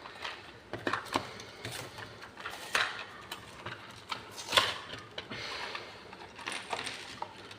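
Lego minifigure packaging being handled and torn open: irregular crinkling and sharp clicks, with a short tearing rustle about five seconds in.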